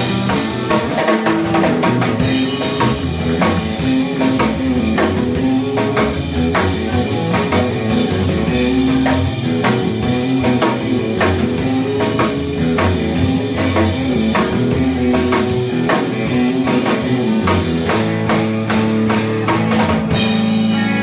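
Live instrumental surf rock: two electric guitars playing over a drum kit, with steady drum hits. About twenty seconds in the drumming stops and a held chord rings on.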